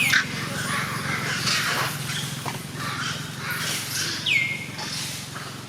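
Short, high-pitched animal calls, each sweeping quickly down in pitch and then holding, heard at the start and again about four seconds in, over a steady low hum.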